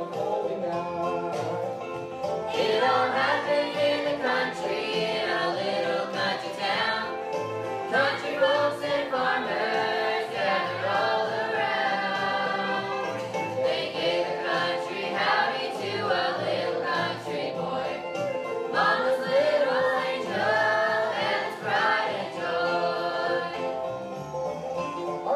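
Children and teenagers singing a song together as a group, over a steady instrumental accompaniment.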